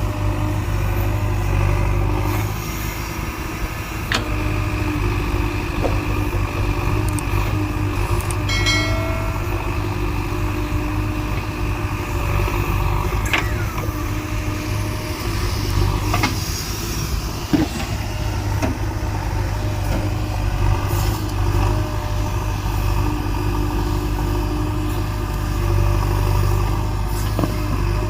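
Diesel engine of a JCB 3DX backhoe loader running steadily under work, with a few sharp metallic knocks scattered through.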